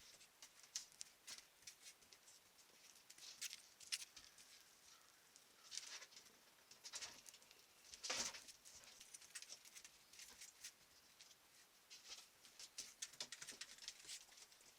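Faint, irregular footsteps and scratching of a baby raccoon moving about a shed, light taps and scrapes with a louder scuffle about eight seconds in.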